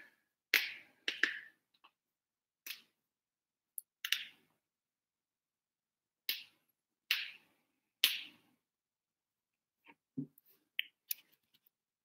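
Scattered short clicks and taps, about a dozen at irregular gaps of a half second to two seconds, with near silence between them.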